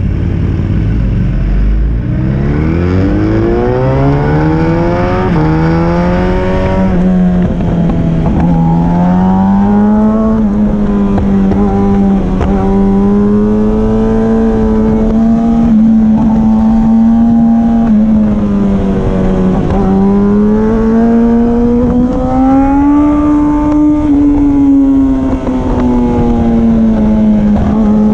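Sport motorcycle engine accelerating hard, its pitch climbing steadily over the first several seconds, then running at high revs with gentle rises and dips as the throttle changes. Wind rush runs under it.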